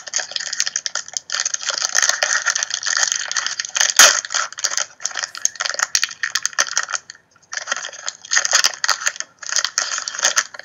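Foil trading-card pack wrapper crinkling and crackling as it is worked open and torn by hand, with one sharper crack about four seconds in and brief pauses near the end.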